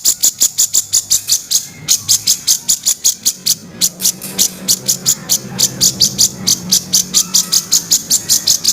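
Cucak jenggot (grey-cheeked bulbul) giving its harsh rasping call, a fast run of sharp, high notes at about five or six a second, with short breaks near two and four seconds in. A faint steady low hum lies underneath.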